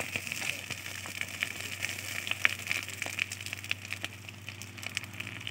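Gas cutting torch flame burning through a steel rail: a steady hiss full of irregular sharp crackles and spatter, over a steady low hum.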